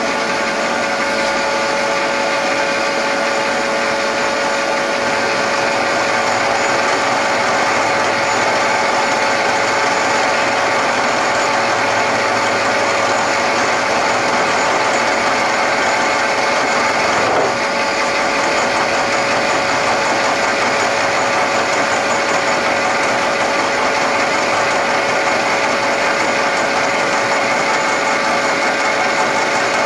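Acer Ultima 3VK knee mill cutting across a part in low spindle gear: a steady whine over dense, even machining noise, with a brief break about 17 seconds in.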